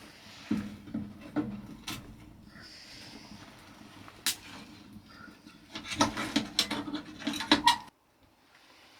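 Irregular knocks, clicks and rubbing of objects being handled, with a quick run of sharp clatters about six seconds in that cuts off suddenly near the end.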